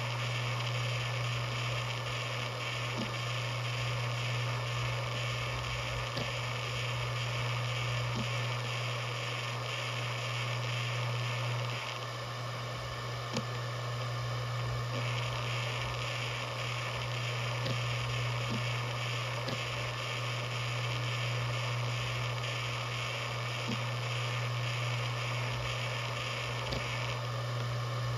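Maxtor DiamondMax 17 160GB 7200 RPM hard drive running with a steady low buzz, which is normal for this model, and a few faint scattered ticks. The higher hiss over the buzz thins out for a few seconds around the middle.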